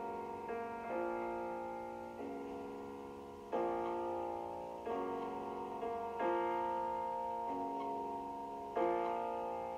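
Slow piano music: chords struck and left to ring and fade, a new chord every second or so.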